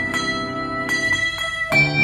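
Bells played in a rhythm: a handful of strikes, each left ringing so the tones overlap. A new note is struck near the end.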